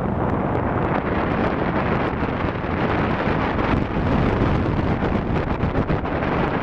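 Airflow buffeting the microphone of a camera mounted on a hang glider's wing in flight: a steady, loud rush of wind noise with a faint crackle.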